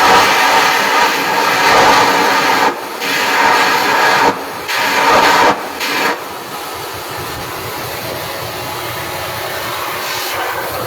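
Stick-welding arc crackling and hissing, broken off briefly three times and stopping about six seconds in, then a quieter steady hiss.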